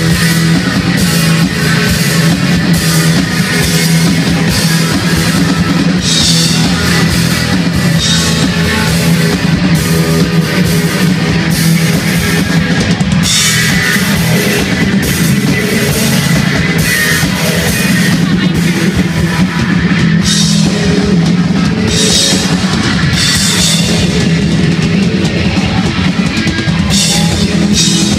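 Rock band playing loud live music, with the drum kit and crashing cymbals to the fore.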